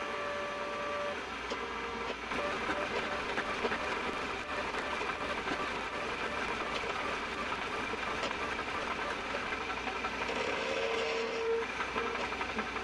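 Metal lathe running while a form tool plunge-cuts a groove into spinning brass bar stock, a steady dense cutting noise with fine crackle from the chips. Brief whistling tones sound at the start and again about ten seconds in.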